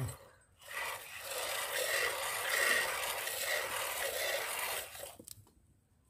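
Milk squirting from a goat's teat into a plastic bucket of frothy milk during hand milking: a steady rasping hiss that starts just under a second in and fades out about five seconds in.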